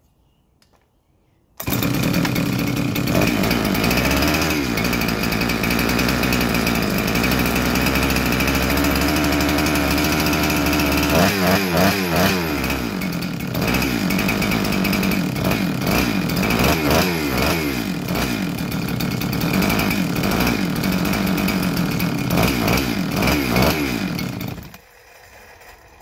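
A big-bore Husqvarna 372XP two-stroke chainsaw starts on a pull about a second and a half in and runs steadily. In the second half it is revved up and down several times, and it is switched off shortly before the end.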